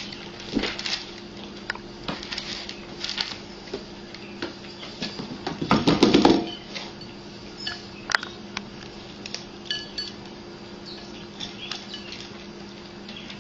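Two cats eating dry kibble from bowls, the kibble and bowls rattling and clicking in scattered short bursts. The rattling is densest and loudest about six seconds in.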